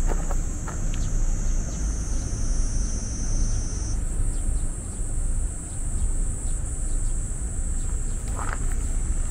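A steady, shrill chorus of insects droning high over a low rumble.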